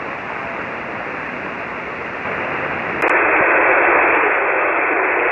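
Shortwave receiver hiss on an empty 40-metre SSB channel, with no signal audible. About three seconds in the hiss becomes louder and narrower as the listening switches to another receiver, here his local receiver on loop antennas, which hears nothing of the other station.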